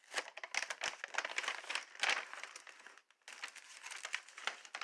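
Meal-kit ingredient packaging crinkling and crackling in a run of short bursts as the packages are handled and opened, with a brief pause about three seconds in.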